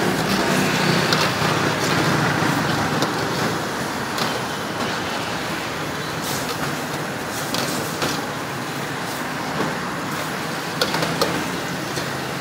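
Gas wok burner's steady rush while a metal ladle stirs and scrapes through noodles in a steel wok, with sharp clinks of ladle on wok now and then.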